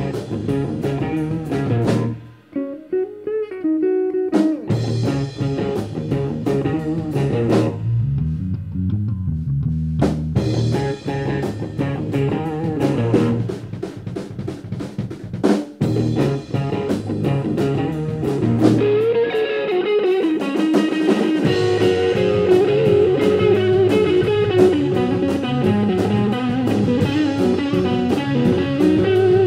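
A rock band plays an instrumental break with guitar over a drum kit. About two seconds in the low end drops out briefly, leaving a lone guitar line, and then the full band comes back in.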